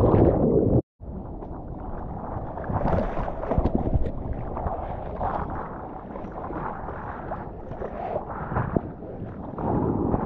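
Sea water sloshing and splashing around a surfboard as the surfer paddles by hand, with wind buffeting a board-mounted camera's microphone. It opens with a loud churning rush of water while the camera is under water, then the sound cuts out briefly just under a second in.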